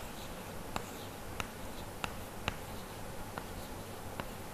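Chalk writing on a blackboard: faint, irregular taps of the chalk against the board, about six of them.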